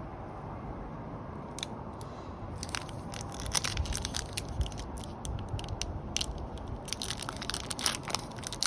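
Foil booster-pack wrappers crinkling and crackling as they are handled, with irregular crackles starting a few seconds in and growing busiest near the end.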